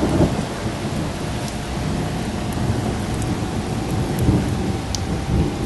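Thunderstorm: heavy rain with a low, continuous rumble and a faint thin whistle held underneath.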